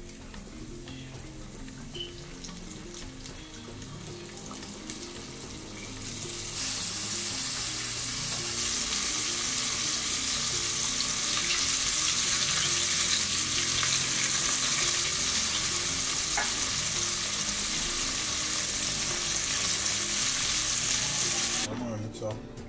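Fish frying in a pot of hot oil, a steady dense sizzle. It gets much louder about six seconds in and cuts off abruptly near the end.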